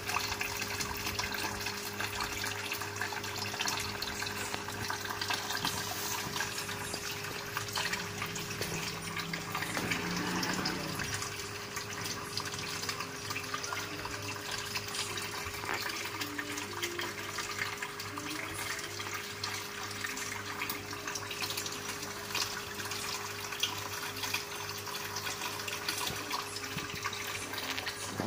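Steady bubbling and trickling of water in a goldfish tank, from its air line and filter, over a steady low electric hum of the pump.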